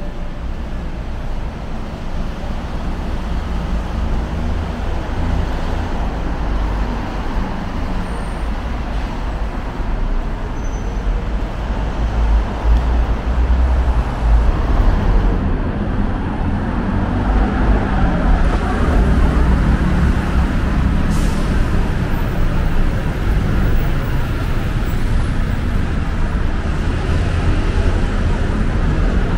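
Steady street traffic noise with a heavy low rumble, growing louder about twelve seconds in.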